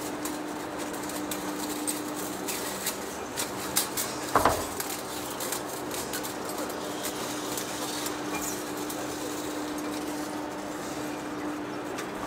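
Heavy-duty face lathe running with a steady hum as its cutting tool turns the face of a large rotor shaft, with scattered metallic clinks and ticks and a louder ringing clank about four and a half seconds in.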